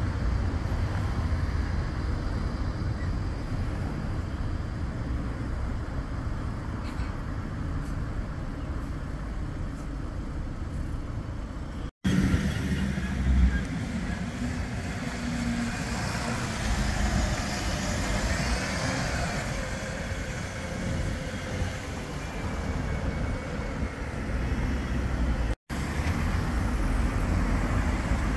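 Street traffic noise with a low rumble, broken by two brief silent cuts. First comes a Bombardier Flexity 2 tram running along street track. Then comes a double-decker bus driving round a mini roundabout, with a whine that rises and falls about halfway through, and last, cars passing over tram tracks.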